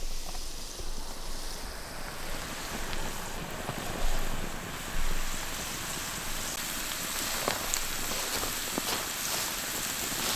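Food sizzling steadily in a cast iron pan over a campfire, a continuous hiss that builds in the first couple of seconds. A few sharp clicks sound in the second half.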